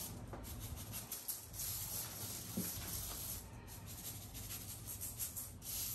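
Salt being shaken from a canister onto raw pork ribs: quick, light rattling of grains in two spells, one near the start and one near the end.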